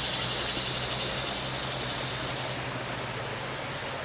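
Steady rush of flowing creek water, with a high steady hiss or buzz over it that cuts off suddenly about two and a half seconds in.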